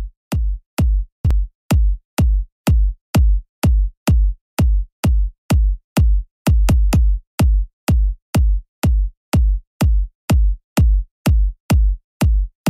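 Electronic background music: a drum-machine bass drum beating steadily, about two beats a second.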